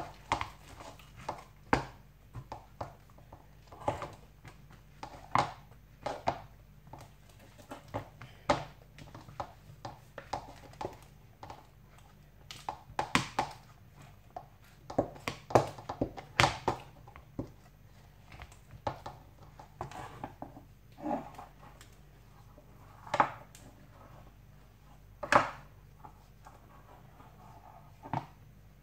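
Wooden spoon mashing and working stiff barley porridge dough (genfo) in a metal pot, giving irregular knocks and dull thuds, some sharper strikes. The porridge is being kneaded smooth between short cooking rounds as it softens.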